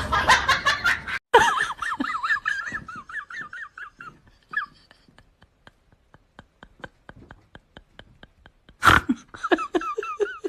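A woman's high-pitched laughter that trails off, then faint regular ticks about four a second, then loud laughter breaking out again near the end.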